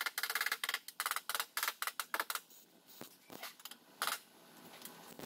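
Hand hammer striking steel on a car's inner wheel arch and body panel, a rapid run of ringing metallic blows for about two and a half seconds, then a few spaced single strikes.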